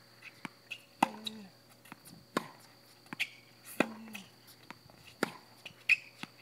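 Tennis rally: sharp pops of the ball struck by rackets and bouncing on the hard court, one about every second or second and a half, with a few short high squeaks between them.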